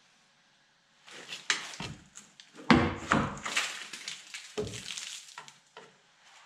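A rusted sheet-metal trim strip on the rear load-floor edge of a Land Rover Discovery 1 is pried and pulled loose, giving a run of clanks, knocks and scraping. The heaviest thump comes near the middle, and another knock follows about a second and a half later.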